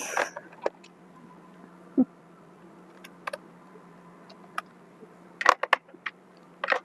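Scattered clicks and taps of small plastic parts and a tool being handled while a robot vacuum is taken apart, with a dull knock about two seconds in and a quick run of clicks near the end, over a faint steady hum.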